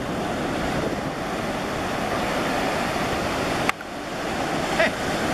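Ocean surf breaking and washing in a steady rush, with wind on the microphone. About three and a half seconds in there is a sharp click and the sound drops suddenly, then builds again.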